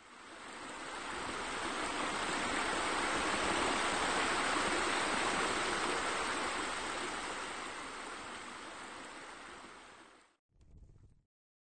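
Rushing water of a waterfall spilling into a pool, a steady splash that swells in and slowly fades. It cuts off about ten seconds in, with a brief faint snatch just after.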